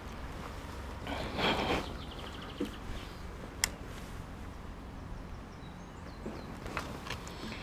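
Outdoor rural ambience with a steady low hum and faint birdsong, broken by a short rustle about a second and a half in and a sharp click near the middle.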